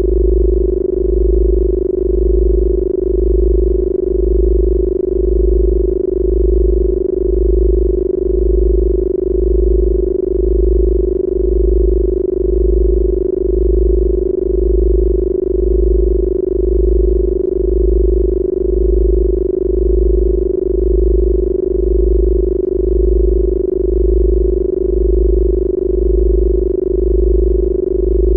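Synthesized 'healing frequency' tones: a steady electronic tone held in the low-middle range, with a deep bass tone pulsing about once a second underneath.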